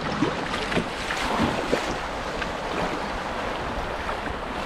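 White water rushing steadily around a kayak running a small river rapid, with scattered splashes and short gurgles of water against the hull.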